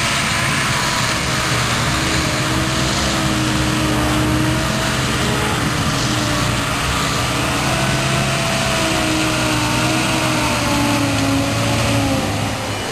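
Engine of an old military truck running steadily as it drives off-road over rough grass, its pitch wavering slightly.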